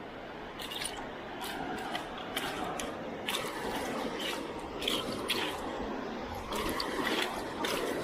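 Sea water splashing and sloshing, with short splashes coming about twice a second over a steady wash of water.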